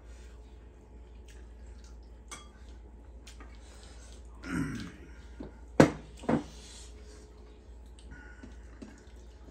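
Eating at a table: small clicks of spoons and fingers on plates and bowls, and a brief voice sound about four and a half seconds in. Just after the middle comes a sharp knock, followed by a softer one, as a bowl of rice is set down on the table.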